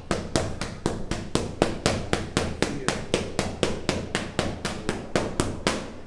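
A fast, even train of sharp strikes, about four a second, that stops abruptly near the end.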